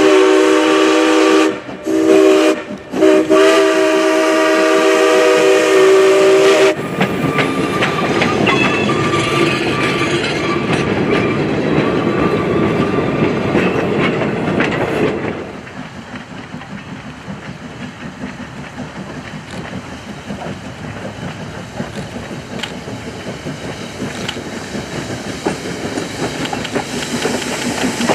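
Polson Logging Co. No. 2 steam locomotive blowing its chime whistle, three blasts with the last the longest, as it passes. Then its train of freight cars rolls by, wheels clicking over the rail joints, loud at first and quieter after about 15 seconds.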